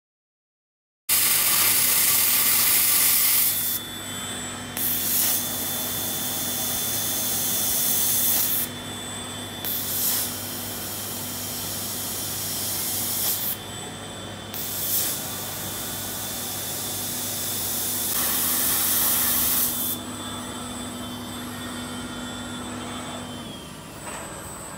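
Robot-mounted milling spindle machining a steel plate: a steady high whine over a low hum, broken by spells of loud hissing a few seconds long that start and stop abruptly. The sound begins suddenly about a second in, and near the end the whine and hum wind down as the spindle stops.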